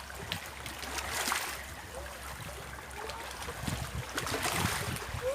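Water splashing and lapping, with two louder swells of splashing, about a second in and about four and a half seconds in.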